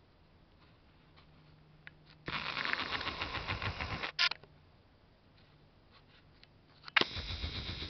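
A camera's zoom lens motor whirring for nearly two seconds as the lens zooms in, ending with a click, then starting again with a click about seven seconds in as it zooms back out.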